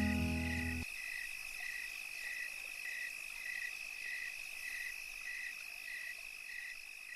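Background music stops about a second in, leaving a tropical night chorus of frogs and insects: a steady high trill with a call repeating about every 0.6 s.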